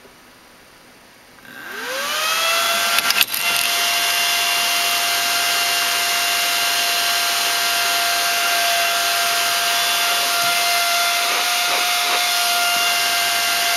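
80mm Delta 'Screamer' high-speed cooling fan spinning up about a second and a half in, its whine rising in pitch and then holding as a steady, loud, high whine over a rush of air. A few sharp knocks come about three seconds in.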